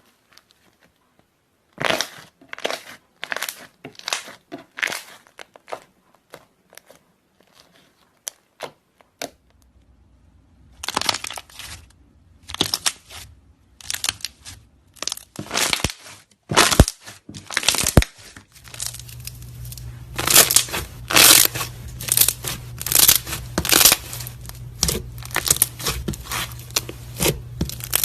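Slime being squeezed and stretched by hand, with trapped air bubbles popping in quick runs of sharp, crackly snaps. In the later part a steady low hum runs beneath the pops.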